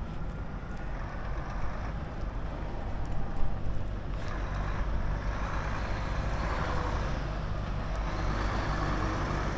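Heavy diesel vehicles, lorries, running with a steady low engine hum, and a hiss that swells about four seconds in.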